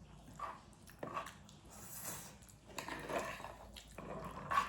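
A person eating noodles close to the microphone: chewing and mouth noises in several short, irregular bursts, the sharpest near the end.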